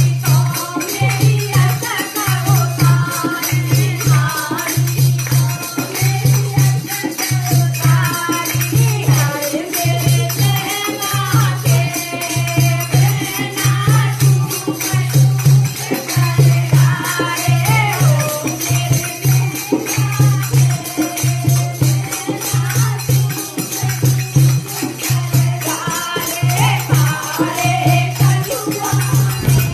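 Indian folk-style song: singing over a steady deep drumbeat about once a second, with jingling rattle-like percussion.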